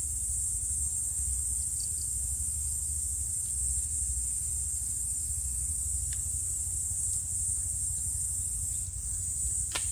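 Steady high-pitched hiss over a low background rumble, with a few faint clicks from hand work inside the engine's crankcase, about six seconds in and again near the end.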